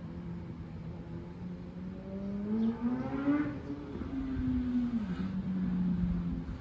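Motor engine running with a steady hum that climbs in pitch about two seconds in, holds, then drops back near the end.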